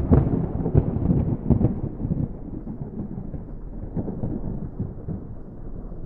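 Thunder rumbling after a lightning strike: loud with rapid crackles through the first two seconds, then a lower, steadier rumble that gradually eases.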